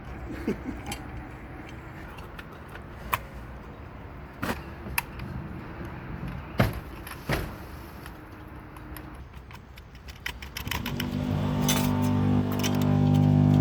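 Sharp metal clinks and taps of a circular saw's blade, arbor bolt and wrench being handled during a blade change. Near the end a loud steady drone of several pitches comes in and grows louder.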